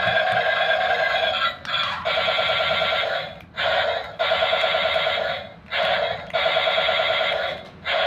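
Remote-control toy tank's built-in electronic sound effect playing through its small speaker: a buzzy, fast-warbling tone in bursts of one to two seconds with short breaks between them.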